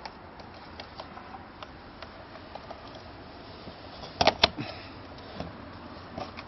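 Batteries being fitted into a battery-operated toy parrot: scattered light plastic clicks of handling, with a louder cluster of sharp clicks about four seconds in.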